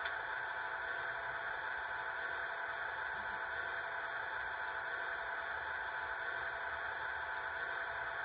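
A DCC sound decoder in an HO-scale F3B diesel unit playing a steady, hissy diesel engine sound through its small speaker.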